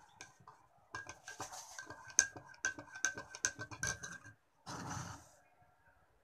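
Metal spoon stirring coffee in a ceramic mug, clinking rapidly and ringing against the inside of the mug, then stopping. About five seconds in there is a brief rush of noise.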